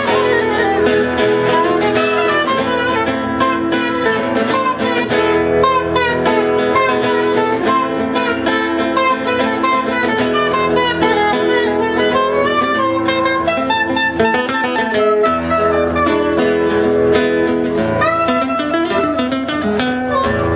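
Live duo of guitar and soprano saxophone playing: a winding saxophone melody that slides up and down over plucked guitar chords.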